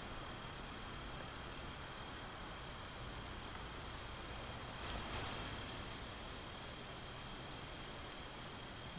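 Faint outdoor background of insects chirping: a high-pitched, fast, even pulse over a steady low hiss.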